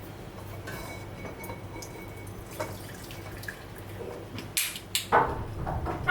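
Sauce dripping and trickling through a kitchen sieve as it is strained, with a few sharper knocks near the end.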